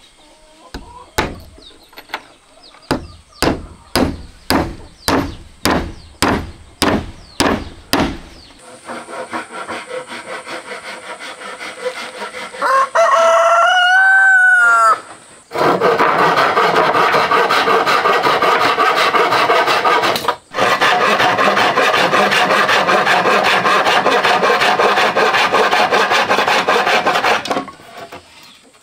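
A hammer driving nails into a wooden board, about fifteen sharp blows in a steady rhythm over the first eight seconds. Then a rooster crows once, and a coarse hand saw cuts through a wooden slat with fast, even strokes for about twelve seconds, with a brief pause partway through.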